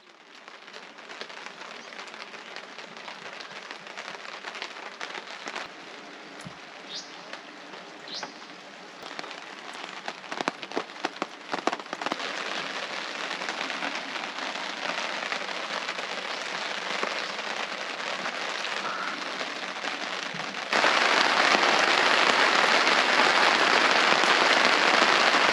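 Steady rain falling, with separate drops pattering sharply now and then and the downpour building. It jumps suddenly louder and heavier about three-quarters of the way through.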